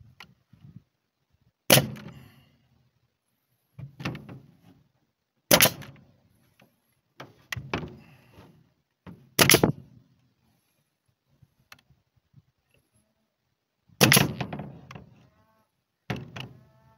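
Pneumatic nail gun firing nails into a timber frame: about six sharp shots a few seconds apart, some louder than others, with lighter knocks of handling between them.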